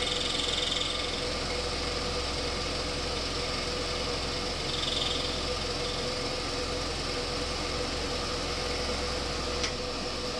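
Scroll saw running steadily, its blade cutting through paper-backed plexiglass (acrylic) around a gear's teeth, with one short tick near the end.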